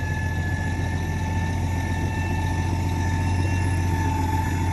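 Heavy engine idling steadily: a low drone with a steady high whine above it.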